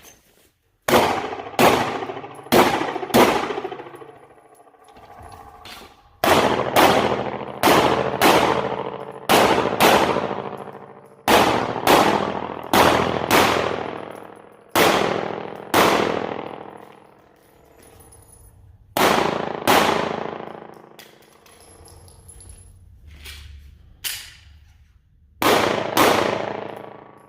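Glock 26 9mm subcompact pistol firing about two dozen shots in quick strings of three to six, with short pauses between strings. Each shot leaves a ringing tail of about a second.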